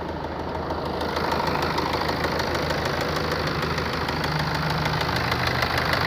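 BMW 118d four-cylinder diesel engine running with a rapid, even knock. The mechanic reads the knock as coming from a connecting rod or piston damaged by wear.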